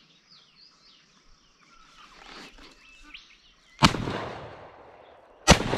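Faint bird calls, then two shotgun shots about a second and a half apart, each followed by a long fading echo.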